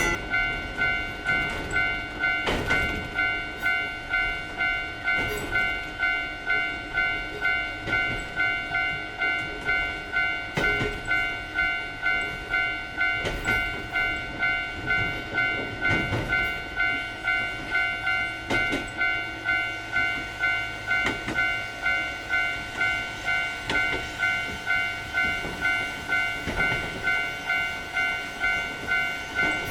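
Japanese railway level-crossing warning bell ringing "kan-kan" in a steady, even rhythm, with a sharper knock every two to three seconds.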